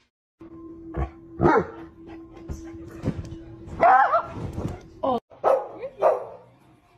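A dog barking several times, loudest about a second and a half in and about four seconds in, with a steady hum under the first five seconds.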